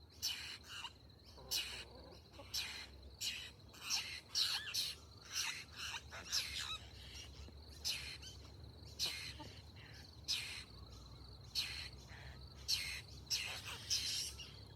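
Baby babbler's food-begging calls: a string of short, harsh chirps, one every half second to second, the sign of a hungry young bird asking to be fed.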